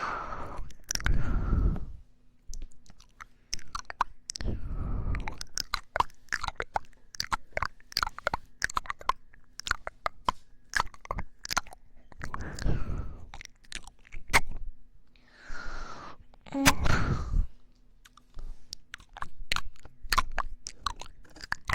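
Popping candy crackling in the mouth close to the microphone: many quick, sharp pops in dense runs, broken a few times by louder breathy mouth sounds.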